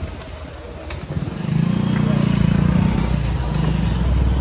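Motorcycle engine running, growing louder about a second in and then holding a steady low drone.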